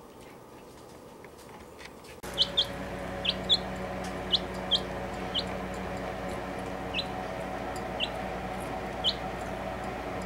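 Young chick peeping: about a dozen short, high peeps, starting a couple of seconds in and coming irregularly, over a steady low hum.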